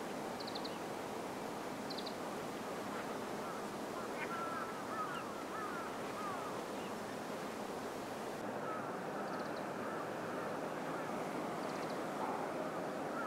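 Steady waterfront ambience, a hiss of wind and water, with birds calling now and then. There are short high chirps, and a run of chattering calls about four to seven seconds in.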